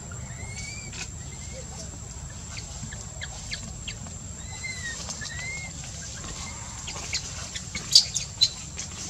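Faint, short, high chirps now and then over a low background hiss, and a few sharp clicks near the end, the loudest about eight seconds in.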